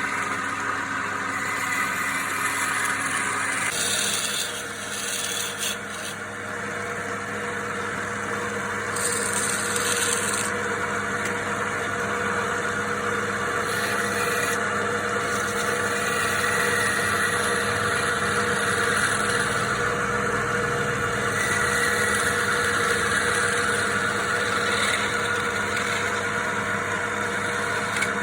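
Wood lathe running steadily while a turning tool scrapes and cuts the spinning wood, the scraping coming and going in spells over the motor's hum.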